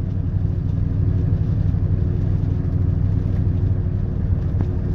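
Steady low rumble of a running motor vehicle, with a constant engine hum.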